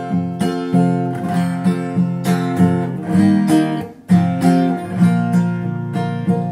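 Steel-string acoustic guitar strummed in a steady rhythm, an instrumental passage with no singing. It drops out briefly just before four seconds in, then comes back with a hard strum.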